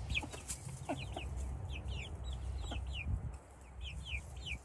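A mixed backyard flock of young hens calling: a steady string of short, high, falling peeps, two or three a second, with a few lower clucks.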